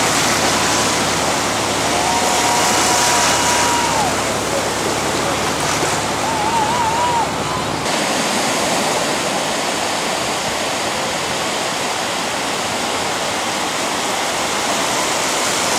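Ocean surf washing and breaking in the shallows, a steady rushing hiss, with a few high drawn-out voice calls in the first half. The sound changes abruptly about eight seconds in.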